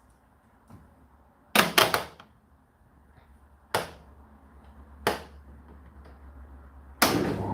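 A few sharp knocks and clicks from handling the Indesit IDC8T3 condenser tumble dryer: a quick cluster, then two single ones. Near the end the dryer starts running suddenly with a steady noise and a low hum.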